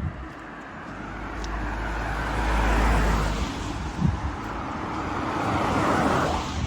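Road traffic passing on a street: tyre and engine noise swelling up, loudest about three seconds in with a low rumble, then a second vehicle passing near the end.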